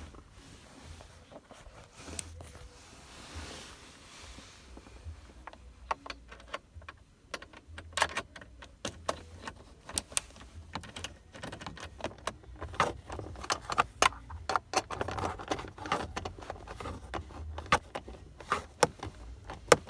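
Hand ratchet clicking in quick, irregular runs as a bolt under the steering column is loosened, mixed with metallic jingling from the keys in the ignition. The clicking starts about five seconds in.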